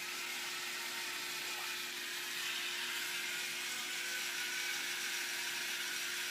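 Electric can opener running steadily as it cuts around a can lid, with a slight rise in loudness about two seconds in.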